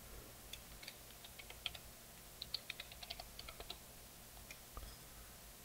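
Faint typing on a computer keyboard: a quick run of about a dozen keystrokes, ending a little before four seconds in.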